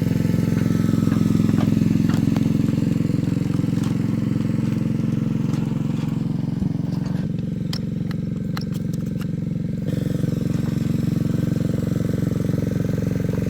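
Small engine of a ride-on miniature locomotive running steadily, its drone dipping slightly past the middle, with scattered light clicks and clacks around the middle.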